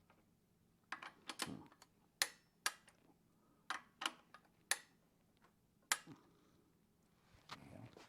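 Irregular sharp metallic clicks and taps of hand tools and small parts against the engine's connecting rods and block, about nine in five seconds, some with a short ring.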